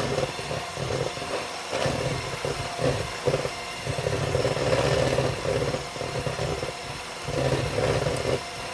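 Electric hand mixer running with its beaters in a bowl of cold whipping cream, whipping it toward stiff peaks. The motor hum swells and dips unevenly as the beaters move through the cream.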